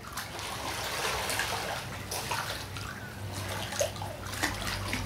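Pool water splashing and sloshing as two people wrestle in it, a steady wash of churned water with a few sharper splashes.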